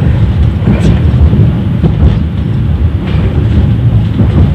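Cabin noise of a 71-931 Vityaz low-floor tram under way: a loud, steady, deep rumble of the wheels on the rails, with a few short knocks.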